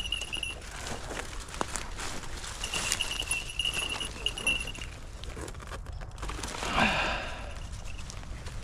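Footsteps, with a high, steady ringing tone that comes and goes several times, and one louder falling sound about seven seconds in.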